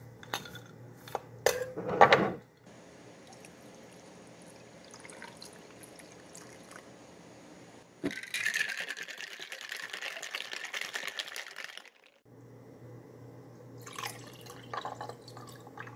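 Iced hibiscus tea being handled in glasses: a few glass knocks and clinks, the loudest about two seconds in, then tea sloshing in a glass mason jar for about four seconds, and near the end tea poured over ice in a glass with the ice clicking.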